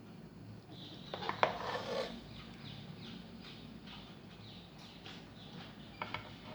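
A serving spoon knocking and scraping against a cooking pot as rice is scooped out, with a few sharp clicks and a scrape about a second in and another knock near the end.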